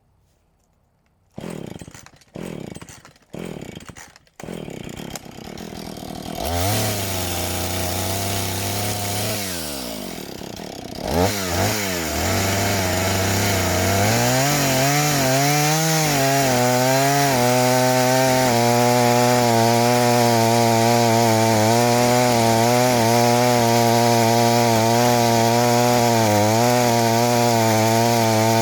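Two-stroke chainsaw pull-started with several quick cord pulls before it catches and idles briefly. It is then revved and run at high speed, the engine note wavering as it cuts into a fresh log.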